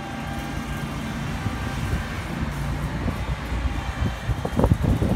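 Small utility vehicle fitted as a mini snow plow, its engine running steadily as it clears snow. Irregular gusty rumbles of wind on the microphone come in near the end.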